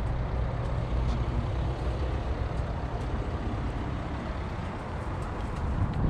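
Steady rumble of road traffic passing nearby, with heavy low noise and no single vehicle standing out.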